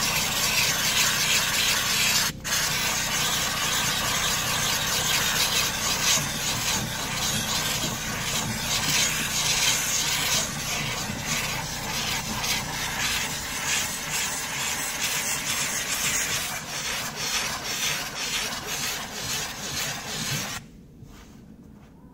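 Steam cleaner hissing steadily out of a handheld brush nozzle rubbed over a cloth car seat, with a brief break about two seconds in. The hiss cuts off suddenly near the end.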